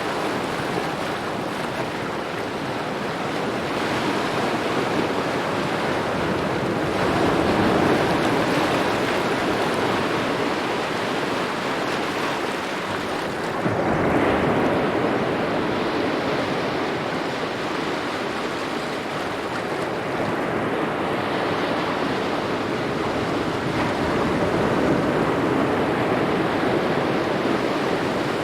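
Small ocean waves lapping and washing in, the wash swelling and ebbing in slow surges. The largest surge comes about halfway through.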